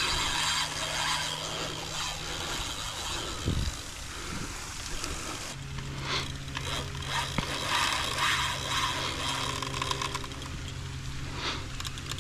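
Fishing reel being cranked, reeling against a hooked alligator on the line, with a steady low hum underneath.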